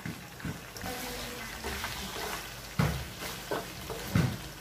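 Fried pork belly and chicken sizzling in adobo sauce in a wok, stirred with a wooden spatula, with two dull knocks, one a little past halfway and one near the end.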